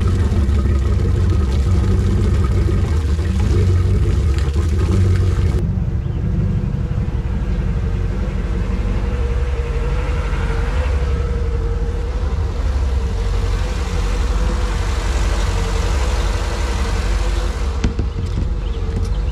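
Crusader marine inboard engine idling steadily as it warms up to operating temperature, run out of the water on a garden-hose water supply.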